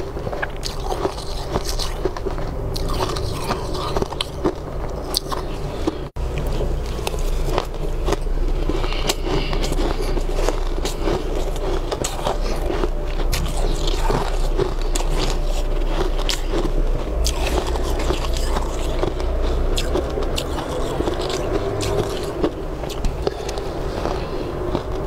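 Crushed ice crunching close up as it is bitten and chewed, many irregular crackly crunches, with a metal spoon scraping through the icy bowl.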